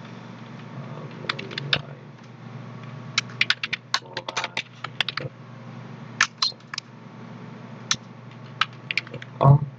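Typing on a computer keyboard: irregular runs of sharp keystroke clicks over a steady low hum, with a brief low thump near the end.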